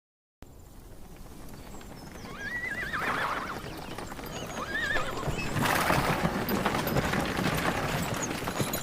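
A horse whinnies twice in quavering calls, then hooves clop in a rapid, busy patter that grows louder about halfway through.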